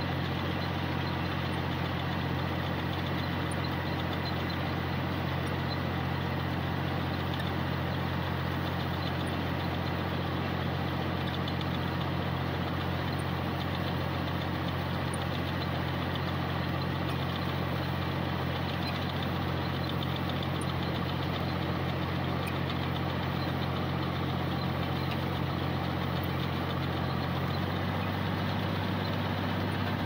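Tractor engine running steadily while pulling a potato digger through the soil, with a steady rattling from the digger over the engine note. The engine note shifts slightly near the end.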